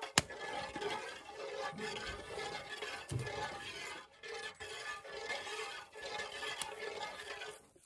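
A spoon stirring liquid in a metal cooking pot, with one sharp click just after the start.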